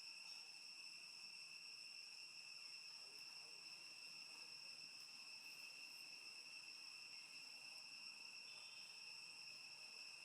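Faint, steady high-pitched insect trill, running on without a break.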